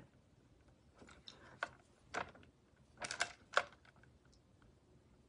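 A paintbrush clicking and tapping lightly against a porcelain plate: a few faint, short, irregular clicks.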